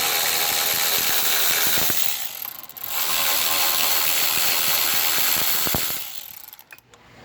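Power tool with a 12 mm socket spinning out the front brake caliper bolts on a motorcycle, a ratcheting mechanical whirr in two runs with a short pause between, dying away near the end.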